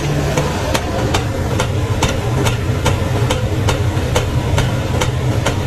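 A steady low mechanical hum with a light, regular ticking about four times a second.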